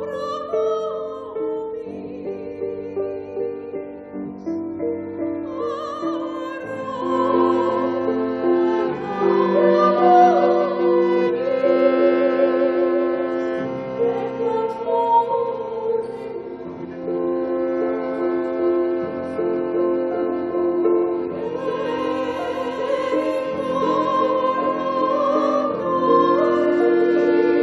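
A woman singing in a classical, operatic style, holding long notes with vibrato across several phrases.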